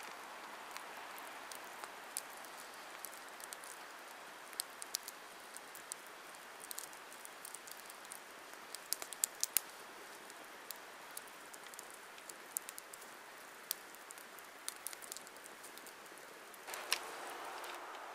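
Wood campfire crackling, with sharp pops and snaps at irregular intervals over a soft steady hiss. Near the end comes one louder snap and a brief louder rush of noise.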